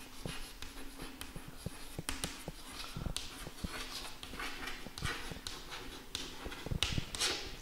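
Chalk writing on a blackboard: soft, irregular taps and short scratchy strokes as the letters are written.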